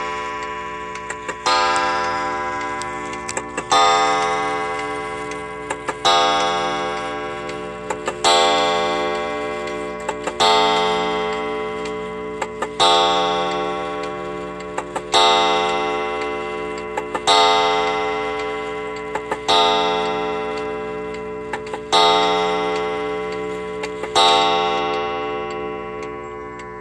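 Pendulum wall clock striking the hour of twelve: one ringing stroke about every two seconds, eleven of them here, each dying away slowly. A small mechanical click comes just before each stroke, under the clock's ticking.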